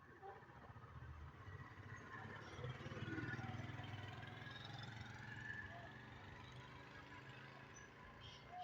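Small birds chirping faintly while a motor vehicle passes, its low engine hum swelling to a peak about three seconds in and then slowly fading.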